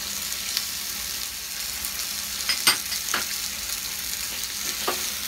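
Diced onion and bell peppers sizzling steadily in oil in a pan over high heat, with a few sharp clicks about halfway through as a spatula scrapes ketchup into the pan.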